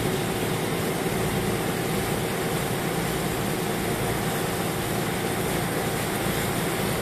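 Tour boat's engine running steadily under way, a continuous low drone with a steady rush of wind and water over it.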